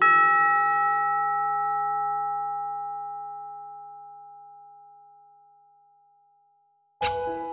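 A single struck bell-like note in the soundtrack music, ringing out and slowly fading away over about six seconds; near the end, light mallet-percussion music starts.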